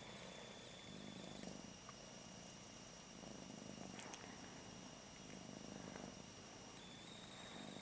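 Domestic cat purring softly, the purr swelling and fading with each breath, while she lies resting between labour contractions.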